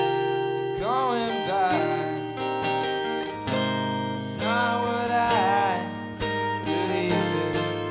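Live band music led by a strummed acoustic guitar, with a melody line over it that bends and wavers about a second in and again around the middle.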